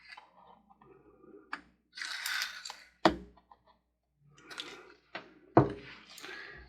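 Tabletop handling noises from resin-craft work: a brief scraping rustle, then two sharp knocks about two and a half seconds apart, like a cup or tool being set down.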